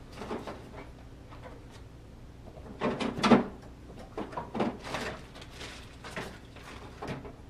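Rummaging: a string of short knocks, clatters and rattles as supplies are shifted about while searching for something, the loudest cluster about three seconds in.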